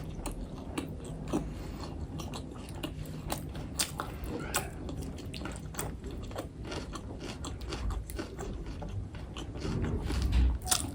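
Close-miked chewing of chilli momo dumplings: wet mouth smacks and irregular small clicks, with a louder low bump near the end.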